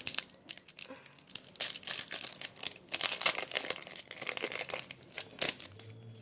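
Foil wrapper of a Pokémon trading card booster pack being torn open by hand, crinkling in a string of short crackles.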